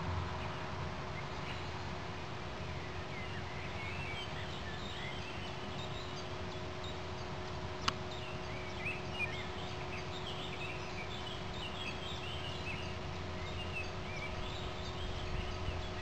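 Outdoor ambience of many small birds chirping and singing over a steady low hum, with a single sharp click about halfway through.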